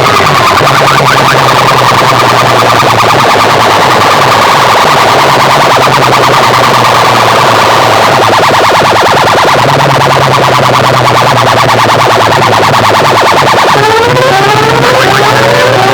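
Large DJ sound-system rigs played at full volume in a loudspeaker competition, blaring electronic siren- and alarm-like effects: a fast pulsing buzz over a bass drone that comes and goes, with repeated rising siren sweeps near the end. The sound is heavily distorted.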